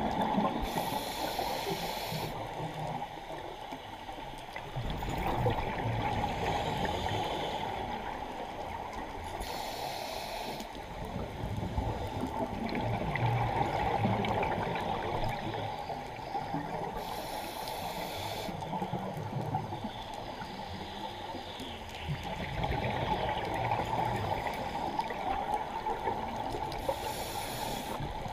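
A scuba diver breathing through a regulator, heard underwater: a short hiss of inhalation about every eight seconds, four times, with low bubbling of exhaled air in between, over a steady underwater rushing.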